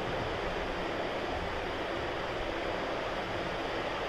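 Steady background noise: an even hiss with no distinct events.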